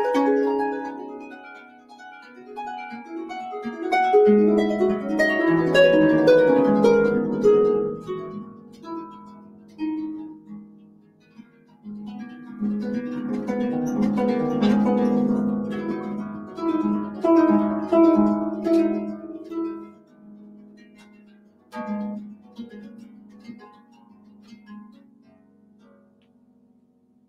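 Harp playing quick plucked notes in two rippling flurries, with a low held note underneath the later part, then a few last notes dying away near the end.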